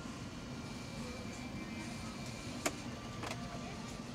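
Steady airliner cabin hum, with a sharp click about two and a half seconds in and a softer one shortly after as a seat-suite storage compartment's door and latch are worked.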